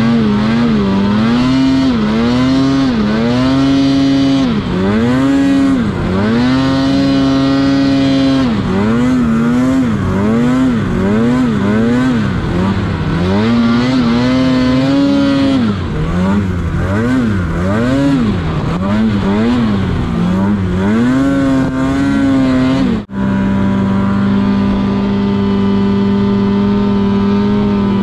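Snowmobile engine revving up and down over and over under throttle, its pitch rising and falling every second or two. About 23 seconds in the sound breaks off abruptly, and a steadier, even engine note follows.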